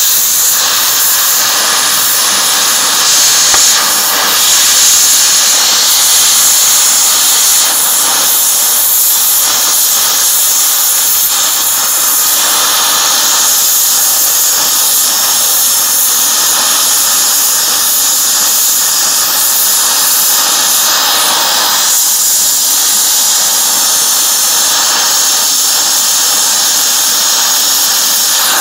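Cutting torch flame hissing steadily as it melts through rusted exhaust bolts on a catalytic converter.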